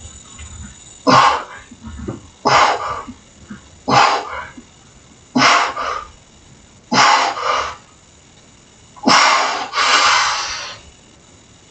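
A man's hard breaths out, one with each dip rep, coming about every second and a half: five short ones, then a longer one near the end as the set finishes.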